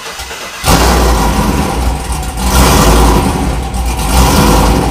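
Cold start of a cammed 2014 Chevrolet Silverado's 5.3 V8 with long-tube headers and a catless Y-pipe: the engine catches suddenly about half a second in and runs loud and uneven, surging a couple of times. The rough running is the way it starts in deep cold, which the owner calls weird and goofy.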